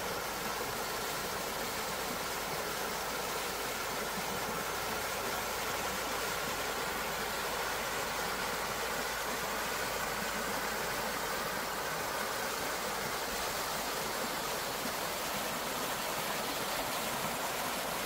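Clear mountain stream running over rocks in a shallow channel of small cascades: a steady, even rush of water.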